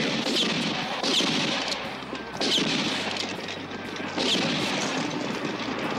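Four gunshots from a western film's soundtrack, spaced a second or so apart, each with a short falling whine, over a running stagecoach scene.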